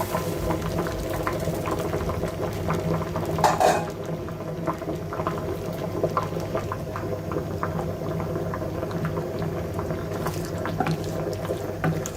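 Liquid bubbling at a boil in a cooking pot, a dense run of small irregular pops over a steady low hum. A brief louder noise cuts in about three and a half seconds in.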